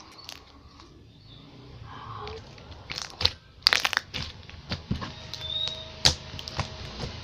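Slime being squeezed and worked by hand, giving irregular crackling clicks and pops that grow louder and denser about halfway through.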